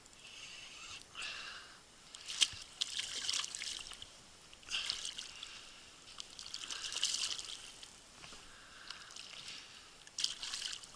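Water splashing and trickling at the boat's side in several separate gushes as a hooked pike is played close in under the boat.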